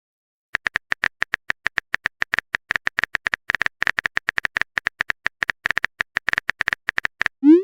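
Chat-app typing sound effect: a quick, even run of identical high clicks, about seven a second, as a message is typed out. A short rising pop comes at the very end.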